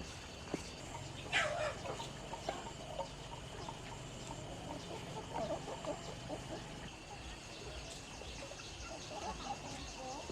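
Chickens clucking on and off, with one louder call about a second and a half in, over a faint steady high hum.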